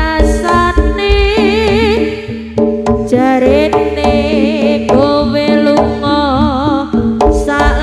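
Javanese jaranan music played by its ensemble: hand drums beating in a quick rhythm under a melody line that wavers with a wide vibrato, over a steady low held tone.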